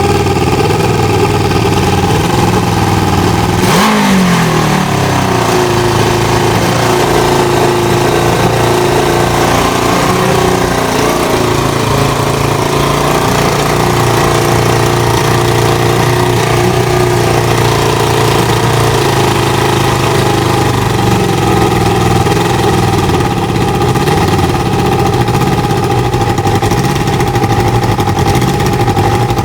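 Kawasaki ZL600 Eliminator's four-cylinder engine running at idle. It is blipped once about four seconds in, and the revs slide back down over about a second. The idle then wanders a little in speed: the surge the owner is chasing by resetting the carburettor air/fuel screws, here at 1.5 turns out.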